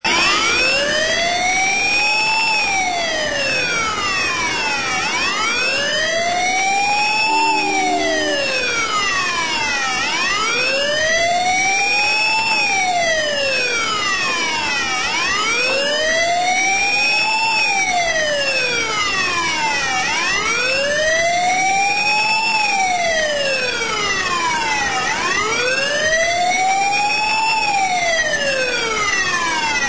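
Emergency-vehicle siren wailing in traffic, its pitch rising and falling slowly, about once every five seconds, without a break.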